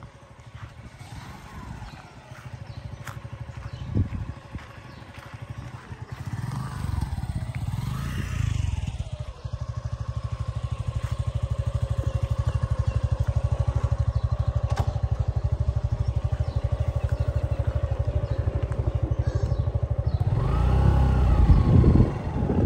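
Motorcycle engine running at low speed with a steady throbbing pulse, growing louder after the first few seconds. The revs rise and fall briefly about eight seconds in and again near the end, where it is loudest.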